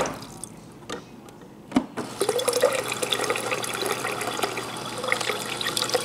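Water from a refrigerator door dispenser pouring into a glass pitcher while a new water filter is being flushed. The flow cuts off right at the start, there are two sharp clicks, and it starts again about two seconds in and runs steadily.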